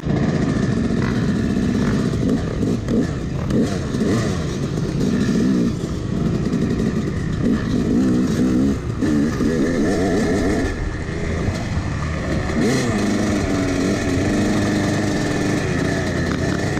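Yamaha YZ250 two-stroke dirt bike engine being ridden, revving up and down over and over.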